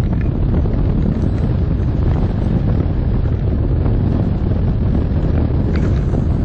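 Wind rushing over and buffeting the microphone of a camera mounted on a tandem hang glider as it runs off the slope and becomes airborne, a steady, loud, low rush.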